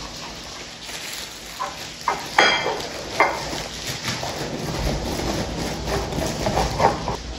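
A small knife sawing through a soft loaf of bread inside its plastic bag, the bag crinkling, with a few sharp clicks and taps of the knife against the plate.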